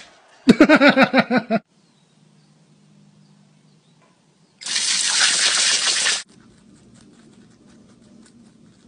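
A rapid run of about ten short pitched vocal sounds, then a garden hose nozzle spraying water in a loud hiss for about a second and a half, starting near the middle and cutting off sharply.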